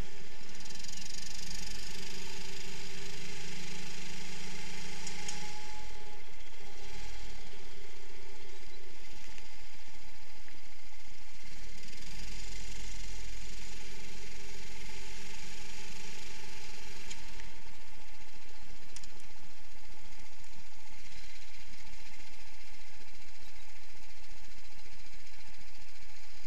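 Rental kart engine heard through an onboard camera mounted on the kart, over rattling and hiss. The engine note is stronger in the first few seconds and again around the middle, then drops to a lower, quieter run for the last several seconds as the kart slows.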